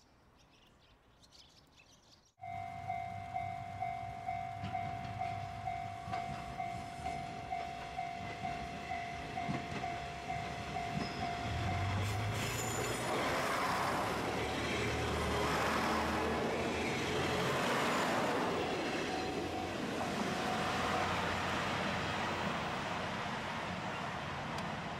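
A level-crossing warning bell rings steadily, about two strokes a second, for the first half. Then a diesel railcar train passes over the crossing: its engine runs and its wheels clatter over the rail joints, loud and rough, fading only a little near the end.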